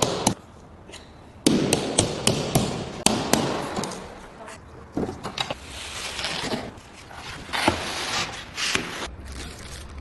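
Packaging of a large battery being opened and handled: a run of sharp knocks and taps, then stretches of scraping and rustling.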